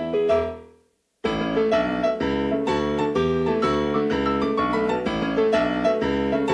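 Background piano music: one piece ends on notes dying away, a short silence about a second in, then another piano piece starts with an even, steady run of notes.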